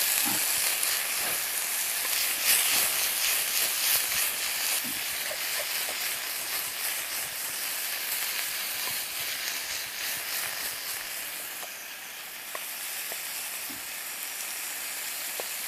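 Diced chicken sizzling in a frying pan over a wood-burning camp stove, stirred with a wooden spatula. The sizzle slowly gets quieter toward the end.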